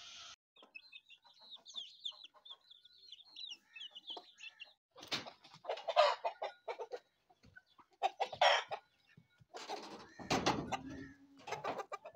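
Chickens clucking, with a few loud separate calls in the second half. Before them comes a run of quick, high-pitched chirping.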